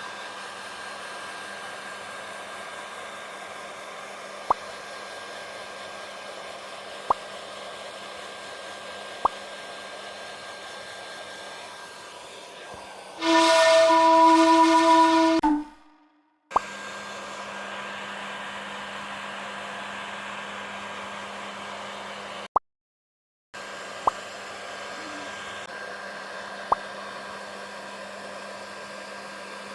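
Hair dryer blowing steadily with a low hum. About 13 s in, a loud, steady pitched tone sounds for about two seconds. The sound cuts out completely twice for about a second, and there are a few sharp clicks.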